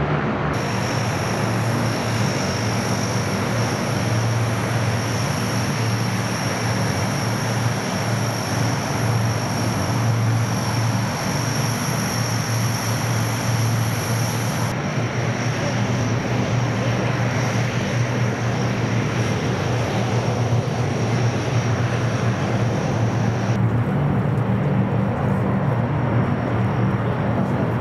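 C-130 Hercules's four turboprop engines running steadily: a low propeller drone with a high turbine whine over it. The highest whine cuts off about halfway through and the other near the end, while the drone goes on.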